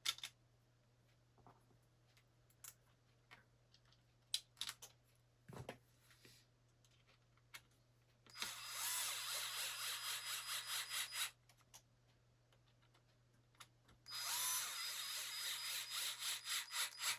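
Small electric screwdriver running in two bursts of about three seconds each, with a fast pulsing whir, driving screws into the RC car. Light clicks and knocks of parts being handled come before it.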